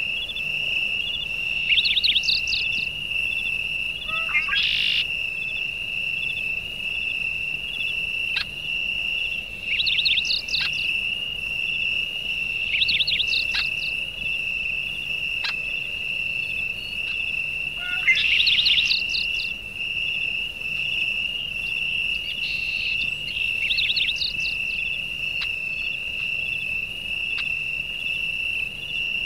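A steady, high, pulsing insect chorus, with a bird's clusters of short, quick chirps breaking in every few seconds.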